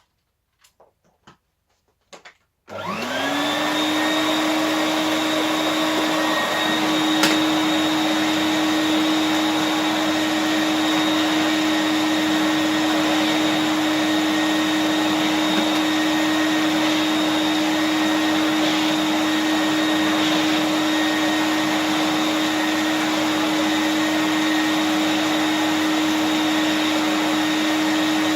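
Numatic George GVE370 vacuum cleaner switched on after a few faint clicks: its motor spins up with a quick rising whine, then runs steadily while dry vacuuming, with one sharp click a few seconds after it starts.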